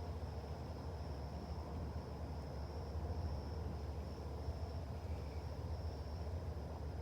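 Insects trilling steadily in one unbroken high note, over a steady low rumble.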